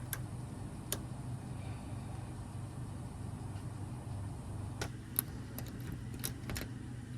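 Small metallic clicks and taps of lock-picking tools working a Kwikset deadbolt: two near the start, then a cluster about five to six and a half seconds in. Under them runs a steady low hum.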